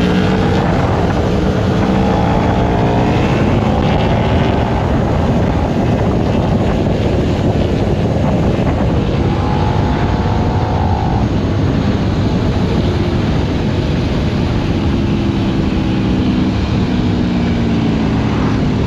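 Motorcycle engine heard onboard while riding, its note rising and falling several times as the rider accelerates and rolls off, over a constant rush of wind and road noise.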